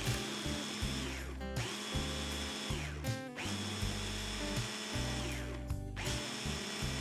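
Electric mini chopper motor blending frozen banana with cream, switched on in about four pulses; each run is a steady high whine that falls in pitch as the motor spins down when released.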